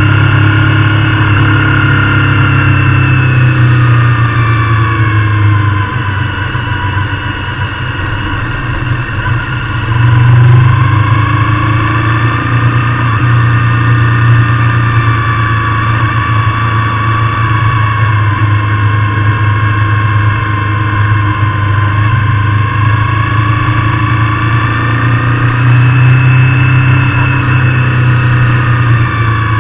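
Motorcycle engine running under way, its pitch rising and falling with the throttle; it eases off about six seconds in and pulls hard again about four seconds later.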